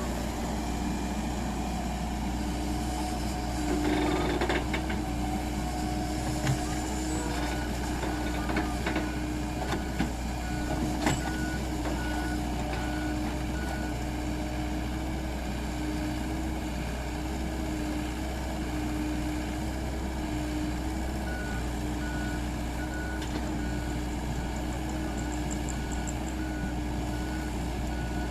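Heavy machinery's diesel engine running steadily, with a back-up alarm beeping at about one and a half beeps a second, clearest in the last quarter. A few sharp knocks come in the first half.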